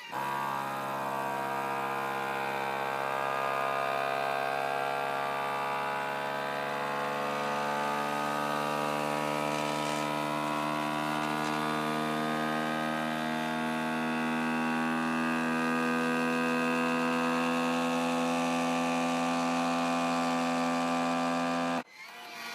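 FoodSaver V3460 vacuum sealer's pump motor running with a steady hum, evacuating a marinating container through the accessory port. It stops abruptly near the end, the pull having reached about 18.5 inches of mercury.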